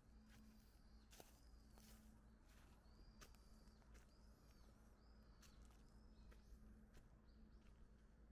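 Faint footsteps on fallen leaves, heard as scattered light crackles and clicks, with a small bird repeating short high chirps.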